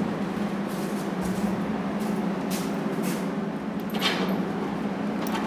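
A steady low mechanical hum, with a few faint brief scrapes and a short swish about four seconds in.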